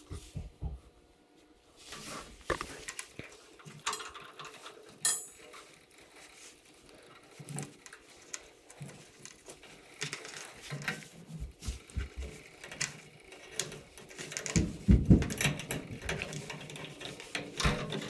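Hand-handling noise from a thermocouple's copper tube and brass fitting being fitted to a gas water heater's control valve: scattered small clicks, taps and rustles, with a few louder bumps near the end.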